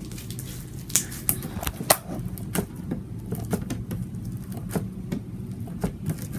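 Slime being squeezed and poked by hand, giving an irregular run of sharp clicks and pops as air pockets burst, the loudest about one and two seconds in.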